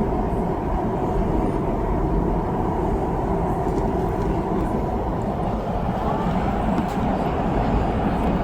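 Steady running noise of a REM light-metro train, heard from inside the car as it travels at speed, with a low, even hum under it.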